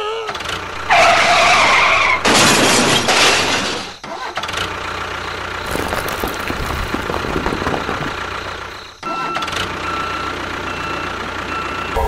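A motor-vehicle engine starting and running, likely a tractor-engine sound effect, with a louder, noisier stretch in the first few seconds. It dips briefly twice, about four and nine seconds in.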